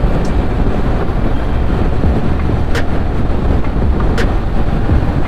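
Motorcycle riding at road speed: steady engine and wind rumble buffeting the helmet- or bike-mounted camera microphone, with a few faint clicks.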